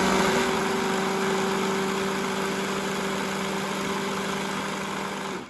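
Electric blender running steadily, puréeing aloe vera leaf pulp into juice: an even motor hum that cuts off near the end.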